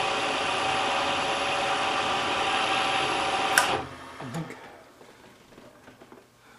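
Milling machine running steadily with its end mill cutting a metal plate, then switched off a little over halfway through: a sharp click, and the sound falls away as the spindle winds down, leaving a few faint small clicks.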